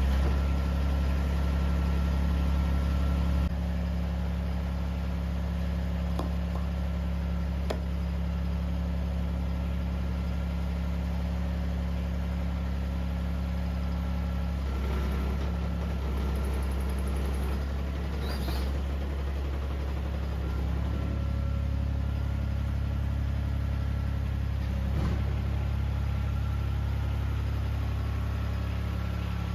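Mini excavator engine idling steadily, having just started, with a slight drop in level a few seconds in and a few light clicks.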